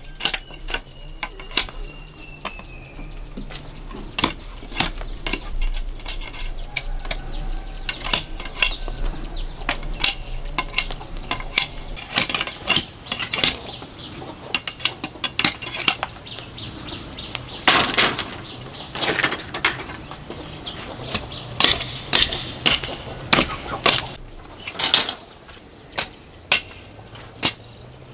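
Machete blade chopping and scraping along a bamboo pole to trim it: an irregular run of sharp knocks and clacks, thickest about two-thirds of the way through.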